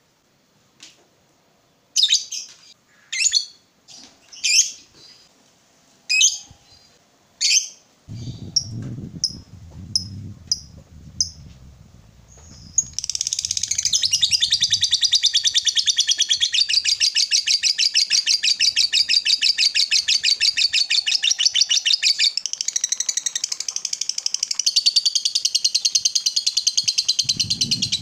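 Fischer's lovebird calling: sharp single chirps about once a second, then from about halfway a long, unbroken rapid chatter, the long 'ngekek' song prized in singing lovebirds.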